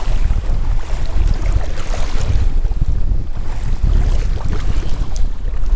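Strong wind buffeting the microphone as a low, gusting rumble, with a hiss of wind and faint water splashes around a kayak being paddled.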